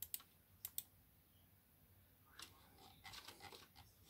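Faint clicking from computer input devices as a web page is navigated: a few sharp clicks in the first second, then a quick run of clicks later on.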